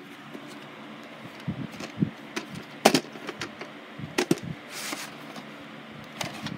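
A VHS cassette and its cardboard sleeve being handled: several sharp plastic clicks and knocks, then a short sliding rustle about five seconds in.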